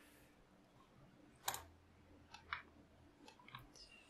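Quiet room with a few scattered clicks from a computer mouse and keyboard, the clearest about one and a half seconds in and a quick pair about a second later.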